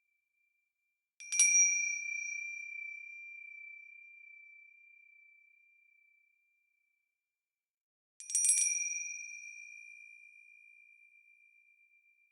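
A bell struck twice, several seconds apart. Each strike gives a bright, high ding that rings on and slowly fades. The second strike is a quick double or triple hit.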